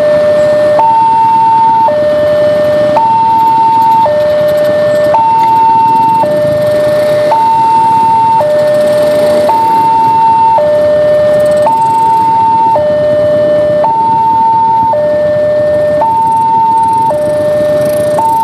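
Railway level-crossing warning alarm sounding: an electronic two-tone signal that switches between a higher and a lower tone about once a second. It is the signal that a train is approaching and the crossing is closing.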